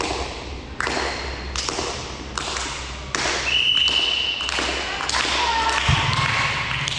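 A volleyball thudding off hands and the floor in a sports hall, about one hit every 0.8 s. About three and a half seconds in comes a single referee's whistle lasting about a second, followed by players' shouts.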